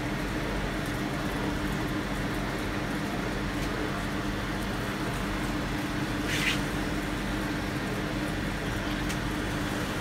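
A steady low background hum with a faint hiss, holding two constant tones, and one short, soft scrape about six and a half seconds in.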